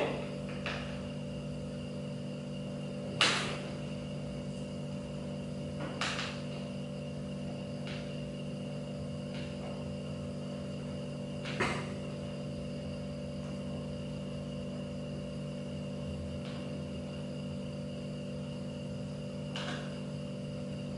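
A handful of short clicks and knocks, about five spread out, as a screwdriver and plastic office-chair parts are handled during assembly, over a steady low hum.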